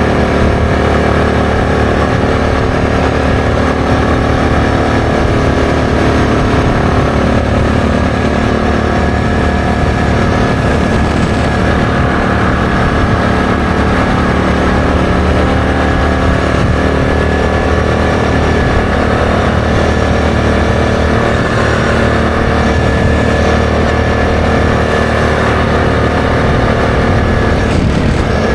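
ATV engine running steadily at cruising speed on the road, with a car passing alongside about halfway through.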